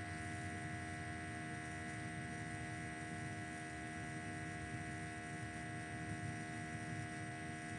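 Steady electrical hum and buzz, several constant tones held without change over a low background rumble.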